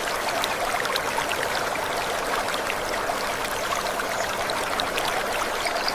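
Water running steadily like a small stream, with scattered light trickling drips.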